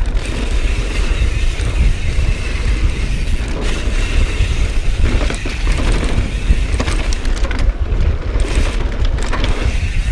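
Mountain bike descending a dirt trail at speed: wind rumbling on the action camera's microphone over the steady rush of tyres on dirt, with scattered clicks and knocks from the bike, more of them in the second half.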